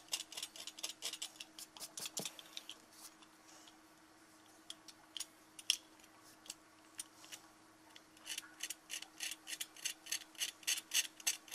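Snap-off cutter blade scraping dried watercolour paint off the paper in short, quick scratches, about four a second, thinning out for a few seconds in the middle: lifting the colour right down to bare white paper to make a highlight.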